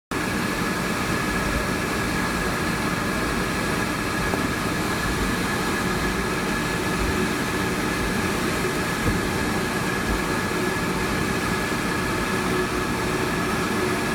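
Steady cabin noise inside a Boeing 757 with its Rolls-Royce RB211 engines running: a constant rumble with a high, steady whine. The level does not rise, so this is not the take-off run.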